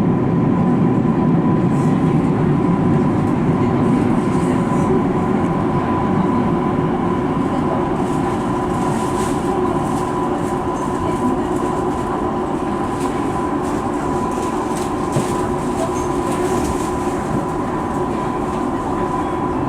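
Tokyu 5050 series electric train running in a subway tunnel: a steady rumble of wheels on rail with a constant hum, and scattered clicks from the track in the second half.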